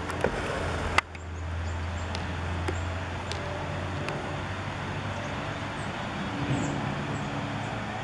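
Outdoor background noise with a low steady hum that weakens after about four seconds, and one sharp click about a second in.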